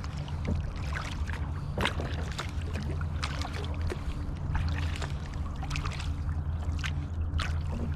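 Kayak paddling: water splashing and dripping off the paddle in short irregular clicks, over a steady low hum.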